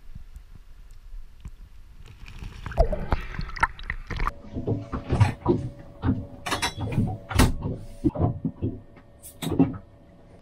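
Irregular knocks, clunks and thuds in a small boat cabin, with a faint steady hum under them from about four seconds in; before them, a few seconds of soft water-and-wind noise.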